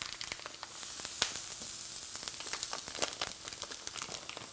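Meat sizzling and crackling on the hot plate of an electric grill on high setting: a steady fat-frying hiss dotted with quick pops, growing a little louder about a second in.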